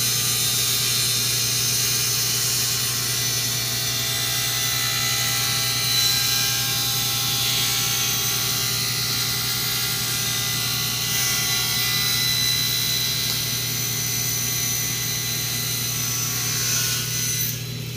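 Table saw running and cutting a 45½-degree bevel along a panel edge, trimming off about a thirty-second of an inch at a controlled feed rate. Steady whine and cutting hiss over a low motor hum, easing slightly near the end.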